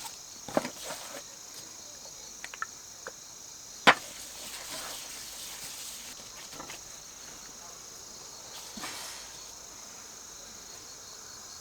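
Insects chirping steadily in a high, continuous chorus. A few sharp knocks or clicks come through it, the loudest a single knock about four seconds in.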